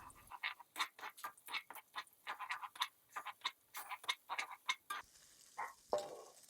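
Spatula tapping and scraping against a wok while scrambling eggs: quick irregular clicks, several a second.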